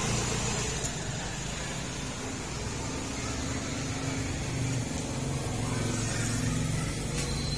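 Street traffic noise: motor vehicle engines running with a steady low hum.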